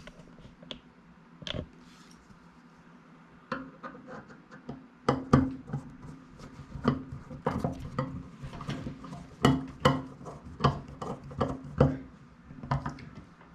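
Small clicks, taps and rubbing from handling a microwave turntable motor and its mounting screw, sparse at first, then coming thick and fast from about three and a half seconds in.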